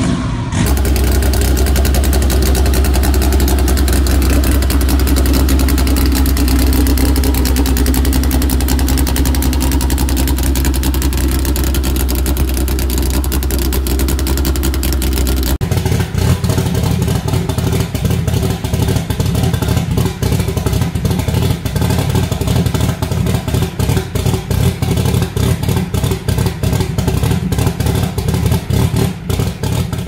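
Honda four-cylinder engines with locked VTEC, two in turn. First, a turbocharged D16 in a Civic hatchback runs with a steady low drone. About halfway through, it switches abruptly to a second turbocharged Honda four-cylinder idling in a choppy, pulsing rhythm, the lumpy idle of a locked-VTEC cam.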